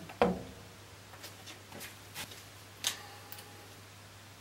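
Handling noises from MDF jig boards on a bandsaw's cast-iron table: a solid knock just after the start as a board is set down against it, then a few light taps and a sharp click about three seconds in. A low steady hum runs underneath.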